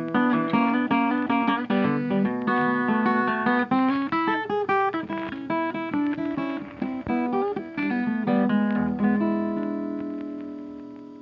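Background music on guitar: a quick run of plucked notes, then a final chord about nine seconds in that rings on and fades out.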